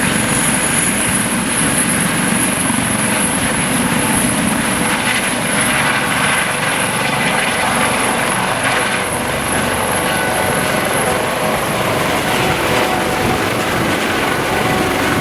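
Aerospatiale AS 365 Dauphin twin-turbine helicopter running loud and steady, rotor noise with a steady high turbine whine over it.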